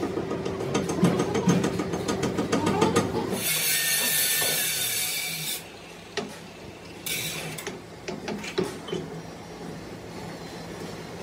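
Metal lathe running with a steady hum and dense rapid clicking, then a loud hiss for about two seconds. After that come scattered metallic clinks and scrapes as a steel gear is fitted into the jaws of a four-jaw lathe chuck.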